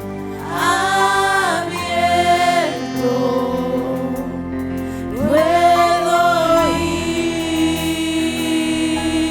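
Spanish-language Christian worship song: voices singing two long held phrases over sustained instrumental chords.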